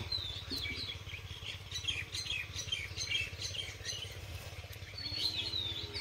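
Small birds chirping: a string of short, high chirps, some of them sliding, with a steady low outdoor rumble underneath.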